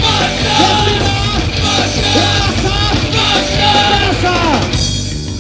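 Live rock band playing on stage, with electric guitars, drums and a singer's lead vocal over them. The band's sound thins out near the end.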